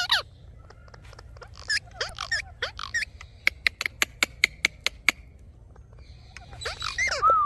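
Indian ringneck parrots giving short warbling, chattering calls, then a quick even run of sharp clicks, about five a second for roughly two seconds, before the chattering starts again near the end.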